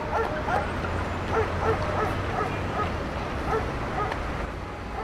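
A small dog yipping over and over, two or three short high yips a second.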